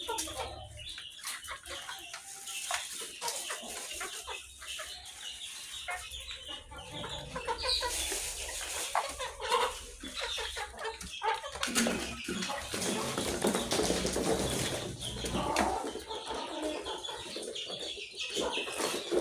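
Chickens clucking as they feed on vegetables, with scattered short knocks and rustles among them. The activity gets busier and louder about halfway through.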